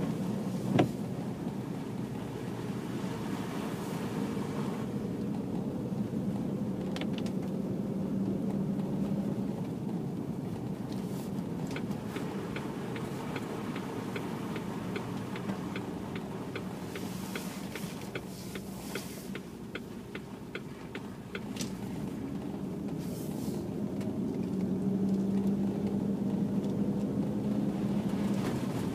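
Range Rover P38 driving on a wet, slushy road, heard from inside the cabin: a steady drone from the BFGoodrich Mud-Terrain KM2 tyres and engine that fades as the car slows and comes back louder as it speeds up near the end. A single sharp knock sounds about a second in, and faint light ticks come in the middle.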